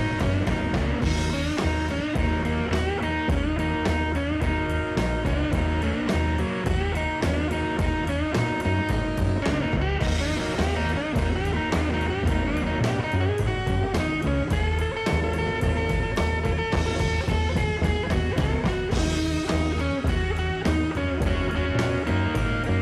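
Live roots-rock band playing an instrumental passage: guitar over bass and drum kit with a steady beat.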